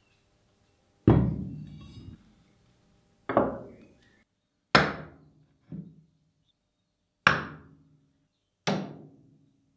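Six hammer blows spaced about one to two seconds apart, one of them softer, each ringing out briefly after the strike.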